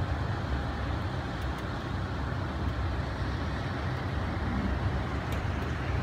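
Strong typhoon wind blowing steadily, a dense rushing noise weighted toward a deep low rumble.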